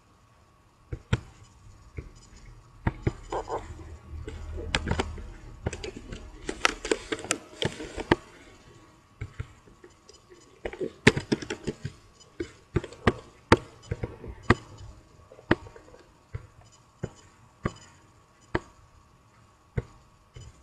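Clicks of a computer mouse and keyboard: a quick run of keystrokes in the first half, then single sharp mouse clicks about once a second.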